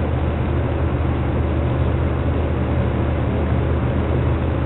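Steady low machine hum with an even rushing hiss underneath, unchanging throughout: the background running of an aquarium's pumps and water filtration.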